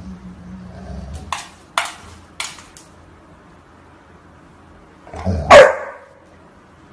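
A golden retriever barks once, loudly, about five and a half seconds in, the bark dropping in pitch. Before it come a low rumble and three short, sharp sounds.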